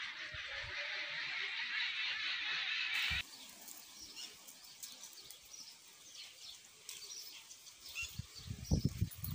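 Birds chirping in the background: a dense chorus of high chirps for about the first three seconds, which cuts off abruptly, then scattered single chirps. Several low thumps come near the end.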